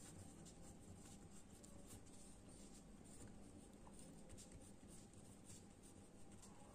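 Faint scratching of a pen writing on paper.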